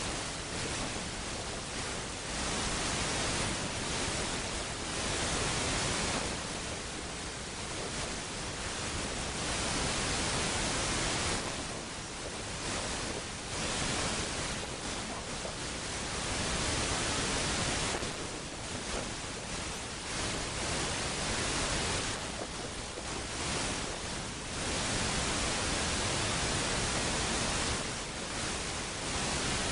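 Steady hiss that swells and eases every few seconds, with no voice or music in it.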